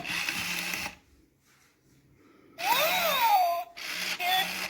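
Electronic Furby-style toy sounds with the whir of the toy's internal gear motor. A short burst of electronic sound ends about a second in, and a pause follows. Then comes a warbling tone that rises and falls in an arch, and another short electronic chirp near the end.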